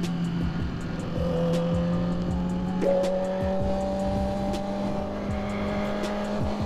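Yamaha R6 sport bike's inline-four engine running steadily at cruising speed, its note climbing slowly, over background music with a steady beat.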